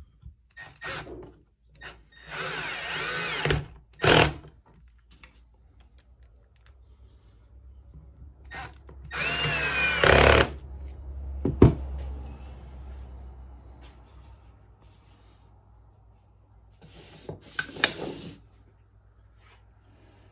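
Cordless drill-driver driving wood screws into an oak board, run in several separate bursts of a second or so each with pauses between, and a sharp click partway through.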